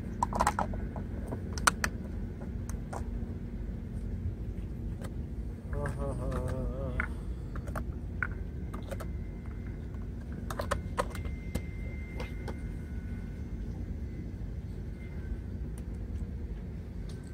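Scattered light clicks and taps of plastic food containers, bottles and chopsticks being handled, over a steady low rumble. A brief snatch of voice about six seconds in.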